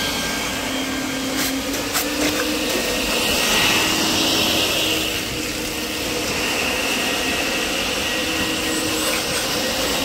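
Depureco industrial wet vacuum's motor running steadily with a whine, sucking up water while its built-in pump discharges it through the hose. A couple of faint clicks about a second and a half in.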